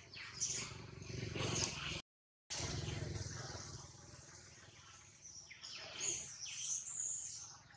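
Short, high-pitched animal calls falling in pitch, several of them, over a low rumble. The sound cuts out completely for about half a second about two seconds in.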